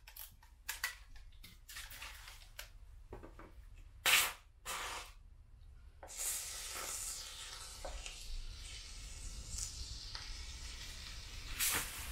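A polyurethane foam gun and can being handled, with clicks and knocks and two short loud bursts about four seconds in. From about six seconds in, mounting foam hisses steadily out of the gun's nozzle as a bead is laid along the sill base.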